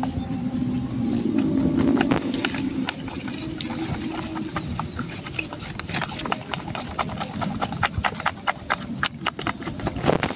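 Wooden stick stirring thick flour batter in a small steel bowl, knocking and scraping against the metal in a quick, uneven run of clicks that grows denser in the second half.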